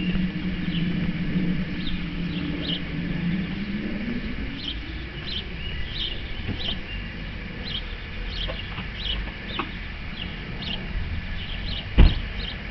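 Birds chirping repeatedly in short calls, with a low hum fading away over the first few seconds. A single sharp knock comes near the end.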